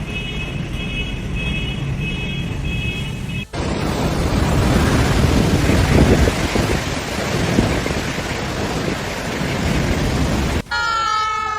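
Storm noise of heavy wind and rain, in clips joined by hard cuts. First comes a steady roar with an electronic beeping about twice a second. About three and a half seconds in it cuts to a louder, gusting roar of wind and rain, and near the end to a short sliding, pitched tone.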